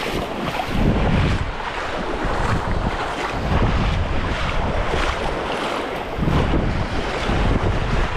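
Small surf waves washing and splashing around a wading angler, with wind buffeting the camera microphone in gusts that bring a loud low rumble every couple of seconds.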